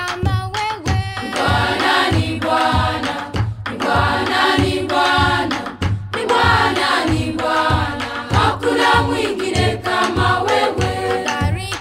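Background music: a choir singing over a steady drum beat.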